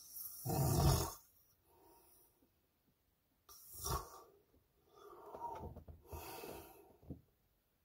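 A man snoring in his sleep, picked up by a phone's microphone inside a truck. One loud snore comes at the start, then quieter, ragged snoring breaths every second or two.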